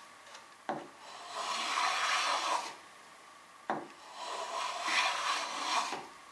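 Number 3 shoulder plane cutting along a wooden edge to round it over: two long rasping strokes, each starting with a sharp tick.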